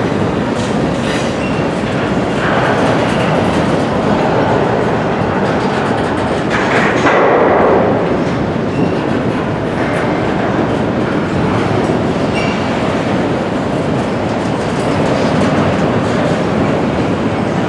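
Intermodal freight train of double-stacked container cars rolling past at close range: a steady rumble and clatter of wheels on rail, with a somewhat louder stretch about seven seconds in.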